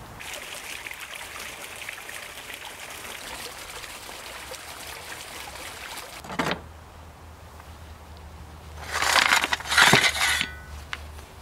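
LiquidArt pondless fountain running, water flowing out of the top of its faux rocks and trickling down over them in a steady splashing. Near the end a shovel scrapes and river rocks clatter and clink as they are dumped around the fountain base.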